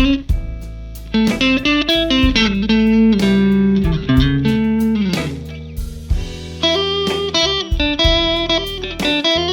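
Electric guitar playing a run of plucked single notes and chords, with pitch slides and bends over a held low note.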